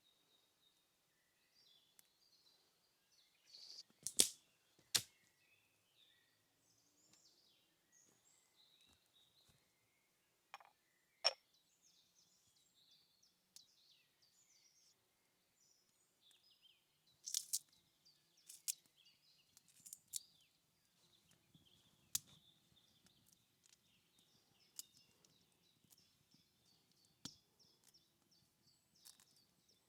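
Faint forest birdsong of small chirps, broken by scattered sharp cracks, two close together about four seconds in and a cluster of them in the back half.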